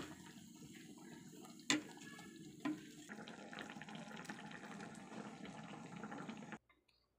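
Fish and tomato-egg sauce in a metal wok, being ladled and simmering: a steady liquid sound with small crackles all through it. The metal ladle clicks sharply against the wok twice in the first three seconds. The sound cuts off suddenly near the end.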